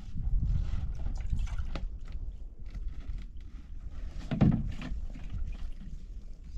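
Wind rumbling on the microphone, with a child handling a plastic jerrycan and metal bowls: scattered light knocks and clatter, and one louder knock about four and a half seconds in.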